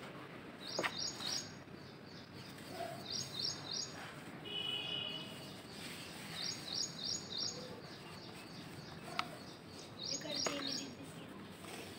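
Dry dirt being crumbled, squeezed and sifted by hand in a plastic bucket, a soft, steady gritty rustle. A bird calls over it with quick runs of three or four high chirps about every three seconds, louder than the crumbling.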